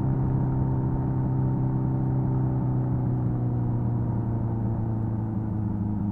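Kawasaki Z900's 948cc inline-four engine running through an SC-Project exhaust on the road, holding a steady note and then slowly falling in pitch over the last few seconds.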